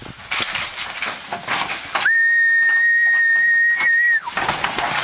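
One long whistle from the dog's handler, held at one steady pitch for about two seconds in the middle and dropping at the very end, a command to the working dog. Before and after it come knocks and scuffling from the sheep and dog moving in the steel race.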